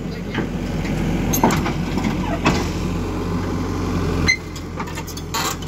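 XCMG XE140i crawler excavator's diesel engine running with a steady hum, with a few scattered knocks and clanks. The hum eases slightly about four seconds in.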